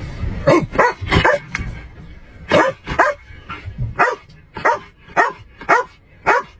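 A police K-9 dog barking repeatedly. The barks are irregular at first, then settle into a steady run of about two barks a second.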